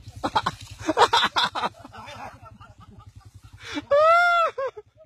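Short bursts of laughter, then a loud drawn-out cry that rises and falls about four seconds in. Underneath is the steady low throb of a motorbike engine left running.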